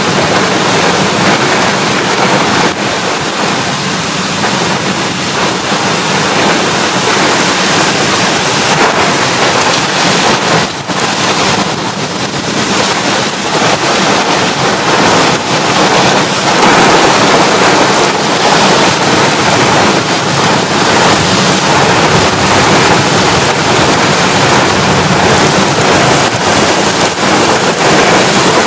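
Heavy rain and gusting wind in a summer thunderstorm, a dense steady hiss of downpour, with wind buffeting the microphone.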